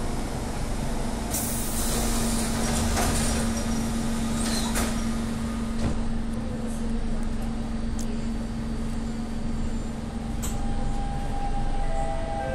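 Interior running noise of a Siemens C651 metro train braking to a stop at a station. A steady motor hum fades out about halfway through. There is a hiss of air early on, a few sharp clicks and knocks, and a high steady tone near the end.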